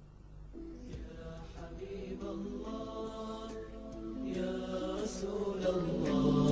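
Male voices humming a wordless chorded backing that grows steadily louder, the chord shifting several times.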